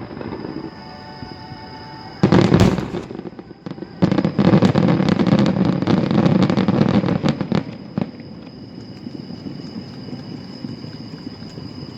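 Fireworks going off: one loud burst just after two seconds, then a dense run of rapid crackling bursts for nearly four seconds from about four seconds in, dying back to faint crackle.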